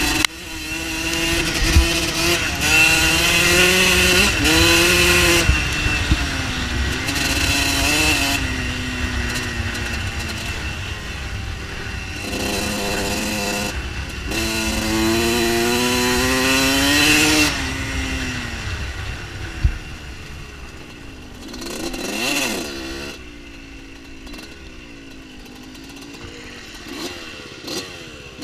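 Dirt bike engine revving, its pitch climbing and dropping back again and again as the bike speeds up and shifts gears. It is loud for the first two-thirds or so, then quieter, with one sharp knock a little before the quieter stretch settles.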